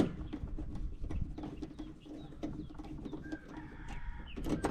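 Small clicks and knocks of hand tools and wire terminals as the wiring is disconnected from a rooftop HVAC package unit. The sharpest click comes right at the start.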